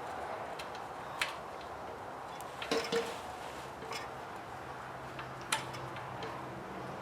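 Wrench work on the engine's mounting bolts and nuts: a few sharp metal clicks and clinks, one about a second in, a short ringing cluster near three seconds and another click past five seconds, over a steady background hiss.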